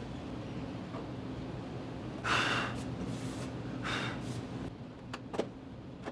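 Pop rivets being dropped by hand into drilled holes in an aluminum wing skin, making a few light clicks in the last seconds. Two short breathy hisses come earlier, about two and four seconds in, over a low steady hum.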